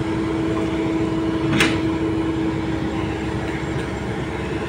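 Kobelco SK200 hydraulic excavator's diesel engine running steadily with a held whining tone as the bucket digs in a muddy, flooded ditch. A single sharp knock comes about a second and a half in.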